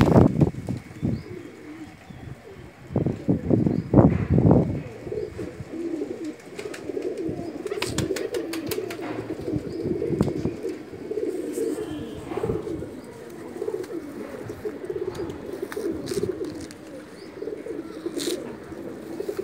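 A large flock of domestic pigeons cooing continuously in a low, wavering chorus. Near the start and again a few seconds in come loud flurries of wings flapping as birds take off, and scattered sharp clicks of wings and feet run through the rest.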